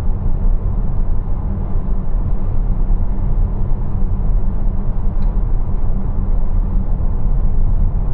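Steady low road and tyre rumble inside the cabin of a 2023 Tesla Model X electric SUV cruising at highway speed, about 67 mph. There is no engine note.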